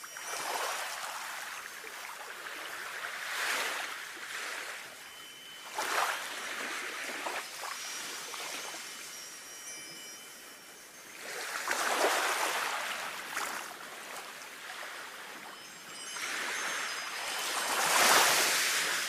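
Sea waves washing in and drawing back in slow swells, the biggest about twelve seconds in and near the end, with the faint tinkling of Japanese wind bells (fūrin) above them.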